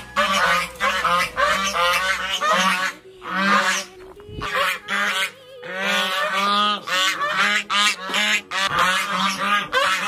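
A flock of white domestic geese honking over and over, loud calls overlapping one another, at feeding time as cornmeal is poured into their trough.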